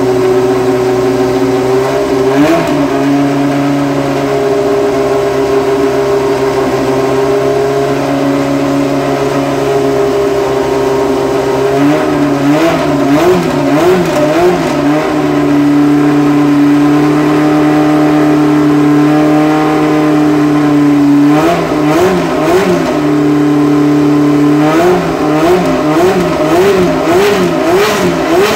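The Williams FW04's Ford-Cosworth DFV V8 racing engine runs at a steady idle and is blipped by hand at the throttle. There is one short rev a couple of seconds in. Quick repeated revs come about halfway through, followed by a steady higher hold. Near the end the blips run continuously at roughly one to two a second.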